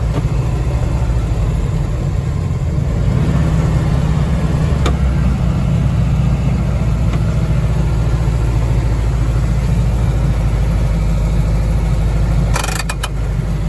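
Air-cooled flat-four engine of an old VW Beetle running steadily at low speed, heard from inside the cabin. A few sharp clicks come near the end.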